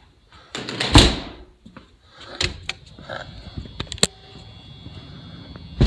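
A door closing with a thump about a second in, followed by a few light clicks and knocks.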